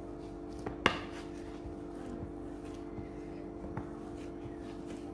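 Hands kneading soft milk-powder dough on a ceramic plate, knocking against the plate now and then, the sharpest knock about a second in. A steady hum runs underneath.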